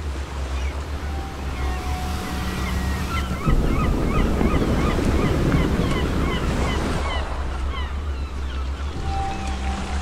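Sea waves and wind, with many short bird chirps over them; a louder wash of surf rises about a third of the way in and eases off after a few seconds.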